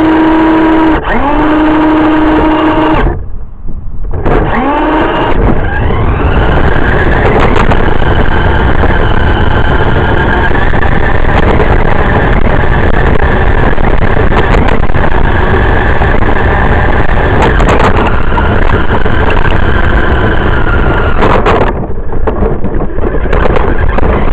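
Radio-controlled car's motor and gears whining, heard up close from a camera mounted on the car as it drives over sidewalk concrete. It cuts out briefly about three seconds in, then rises in pitch as the car speeds up and holds a steady high whine, dropping away for a moment near the end.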